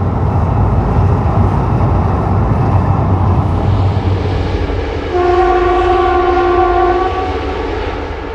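Train rumbling by, with one horn blast of about two seconds starting about five seconds in; the rumble then fades away.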